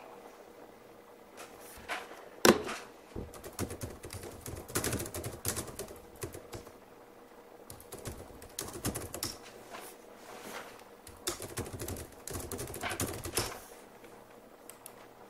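Computer keyboard typing in irregular bursts of quick key clicks, with short pauses between the bursts.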